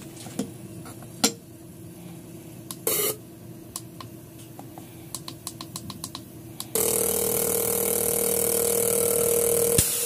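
Fuel injector from a Nissan MR18 engine on a bench tester: a few sharp clicks and a run of light clicks as the glass catch tube is set in place and the tester is worked, then about seven seconds in the injector is driven open, buzzing steadily and hissing as it sprays into the tube for about three seconds before cutting off with a click.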